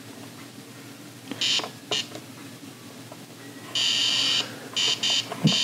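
Etch A Sketch Animator's electronic drawing tone as its knobs are turned, a monotonous high buzz in short bursts. There is a brief one about a second and a half in, a longer one near four seconds, and several quick ones near the end.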